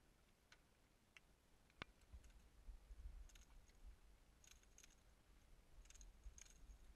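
Near silence with faint scattered clicks, a few in small clusters, one sharper tick about two seconds in, and a low rumble underneath.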